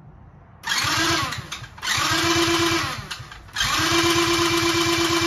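Electric starter cranking the 50cc Kazuma Meerkat's single-cylinder four-stroke engine in three bursts, two short and then a longer one, a steady whine over a quick, even chugging beat. It turns over cleanly with no grinding: the replacement starter works, showing the earlier grinding came from the old, bad starter and not from the engine.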